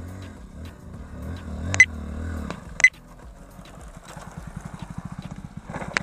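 A small motorcycle's engine running, with two sharp clicks about two and three seconds in. In the second half it settles into an even putter that quickens slightly toward the end.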